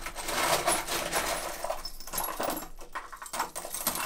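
A hand stirring and scooping a box full of small metal nuts, bolts, washers and clamps, which clink and rattle against one another in a dense run of jingles.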